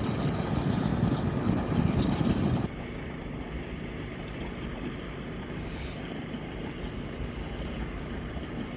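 Gas engine and pump of a small beach gold dredge running steadily, a low rumble with a noisy hiss on top. It drops abruptly to a quieter, steady level about three seconds in.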